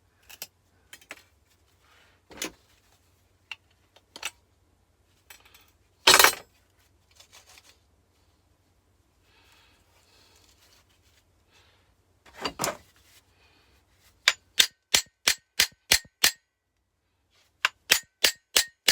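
Hammer striking the metal parts of a car compressor: a few scattered knocks and clatters with two heavier blows, then from about two-thirds in a quick run of ringing metallic strikes, about four a second.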